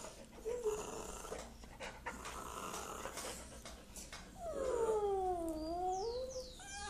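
A dog whining for food: breathy, grumbling sounds, then about four seconds in one long whine of about two seconds that falls and then rises again.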